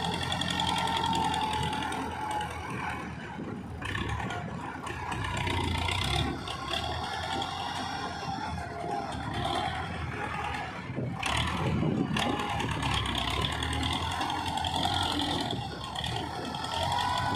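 Farm tractor engine running steadily as its front loader digs and lifts soil, with a thin whine over it near the start and again near the end.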